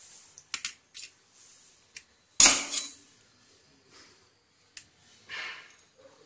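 A perforated steel skimmer spoon clinking and scraping against a steel bowl as it works through soft set pudding: a few light clicks and scrapes, with one loud clank about two and a half seconds in.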